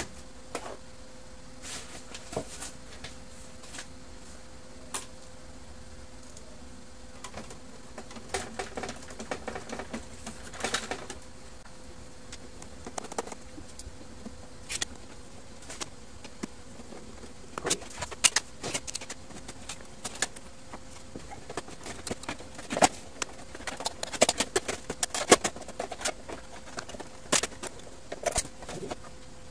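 Irregular plastic clicks and knocks from laser-printer parts being handled and fitted back into the open printer casing, busier after the first few seconds. A steady faint hum runs underneath.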